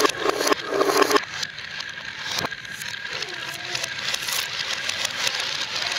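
Many marbles rolling and clattering down a wooden marble-run slope with wavy channels, clicking against the wooden sides as they zigzag. The dense rattle thins after about a second into a lighter, steady rolling patter, with one sharp click a little before the middle.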